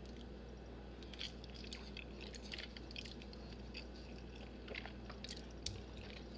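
Faint chewing of a mouthful of noodles, with small wet mouth clicks and smacks scattered throughout.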